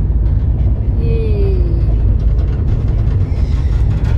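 Steady low rumble of a passenger train coach running along the track, heard from inside the carriage.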